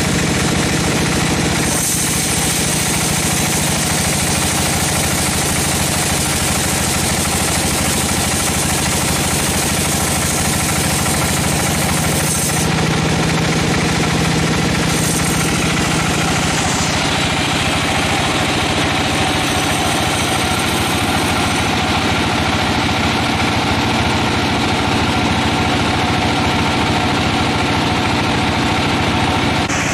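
Sawmill machinery running steadily: an engine hum under a wide hiss, with the high hiss changing a few times, at about 2, 13 and 17 seconds in.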